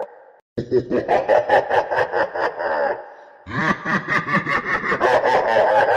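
Evil laugh sound effect: a cackling run of rapid, evenly spaced 'ha' syllables. It plays twice, with a brief break about three seconds in, as the loop repeats.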